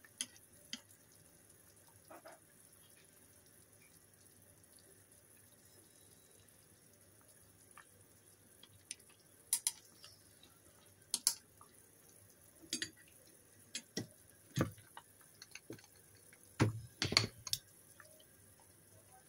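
Beef simmering in a saucepan of water, with scattered sharp clicks and knocks as a wooden chopstick stirs the meat and strikes the pot, several in a cluster near the end.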